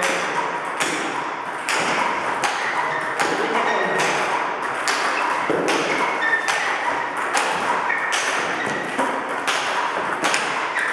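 Table tennis multiball drill: balls repeatedly bouncing on the table and struck by rubber-faced paddles, the player alternating backhand pushes and forehand topspin, about two sharp pings and taps a second, with more ball clicks from another table.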